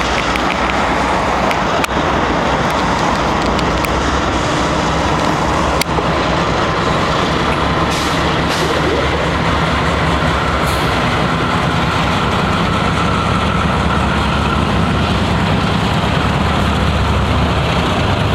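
BNSF diesel-electric freight locomotives passing close by, their engines running under load with a steady low rumble that grows stronger in the second half as the units go by. Two sharp clicks cut through, about two and six seconds in.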